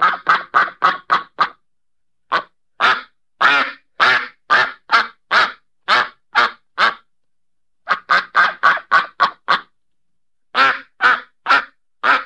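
A duck quacking: runs of short, loud quacks, about two or three a second, broken by brief pauses.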